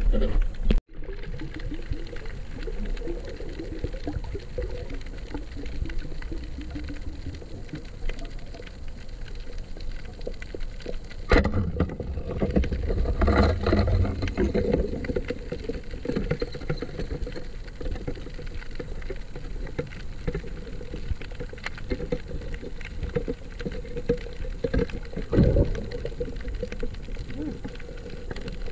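Underwater sound through a camera housing: a steady low rush of water with a constant crackle of tiny clicks from snapping shrimp on the reef. A sharp knock comes about 11 seconds in, followed by a couple of seconds of stirring and knocking, and another knock near the end. The sound cuts out briefly just under a second in.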